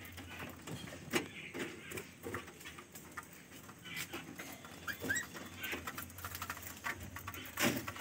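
Budgerigars chirping faintly now and then, among scattered light clicks and taps, with a sharper knock near the end.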